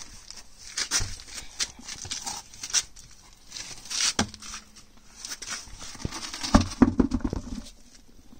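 Scuffs and knocks of an off-road wheel (mud-terrain tyre on an alloy rim) being pulled off the hub, carried and set down on concrete, with a quick run of heavy thuds about two-thirds of the way through as it drops flat and settles.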